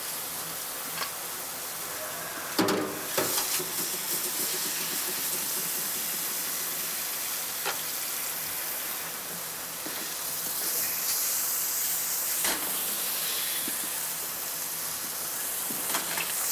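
Metal pots and pans clattering in a stainless-steel kitchen sink, with a cluster of clanks about two and a half seconds in and a couple of single clinks later. A steady hiss runs under them.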